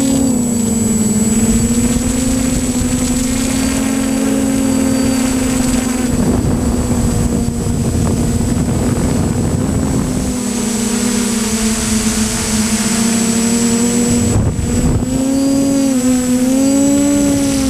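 Camera drone's motors and propellers buzzing steadily in flight, the pitch wavering up and down as it manoeuvres, with wind rushing over the microphone.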